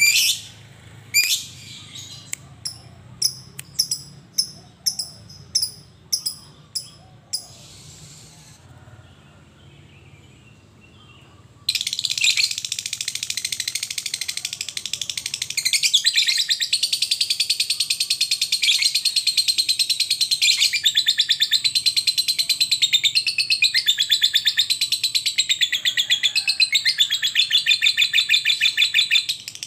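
Lovebird calling: first a series of about a dozen short, sharp chirps at an even pace, then a brief pause. From about twelve seconds in comes a long unbroken rapid chatter, the lovebird's 'ngekek' song.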